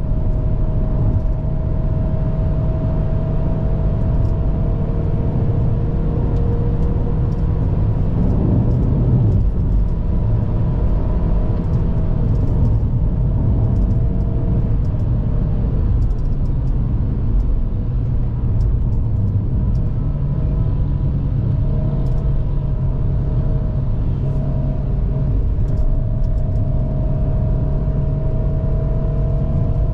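A GAC GS3's 1.5-litre naturally aspirated petrol engine pulling the car uphill, heard from the cabin over a steady rumble of road noise. The engine's pitch drifts gently up and down with the revs.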